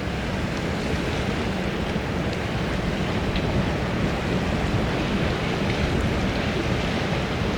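Strong wind blowing steadily, buffeting the microphone with a continuous low rumble and rushing hiss.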